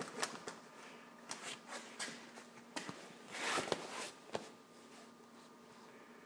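Scattered clicks and rustles of handling and moving about, with a longer rustling burst about three and a half seconds in, over a faint steady hum from the pellet rocket stove's fan.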